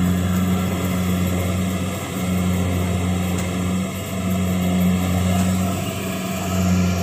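Kubota DC-70 Plus rice combine harvester running steadily under load in deep mud: a continuous diesel drone that swells and eases about every two seconds.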